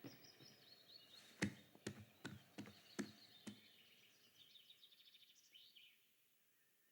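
Faint birds chirping, with a run of about six soft knocks from about a second and a half in, roughly half a second apart.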